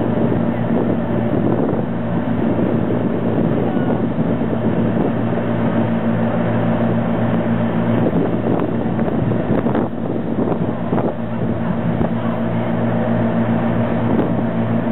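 Car ferry under way: its engines drone steadily, with the rush of the churning wake and wind buffeting the microphone.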